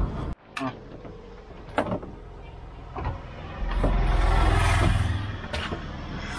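A motor vehicle rumbling past, swelling and then fading about four to five seconds in, with a few sharp clicks or knocks before it.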